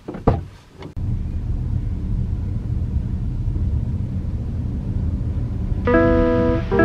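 A sharp thump just after the start, then the steady low rumble of a Suzuki car's cabin as it drives slowly along. Plucked guitar music comes in near the end.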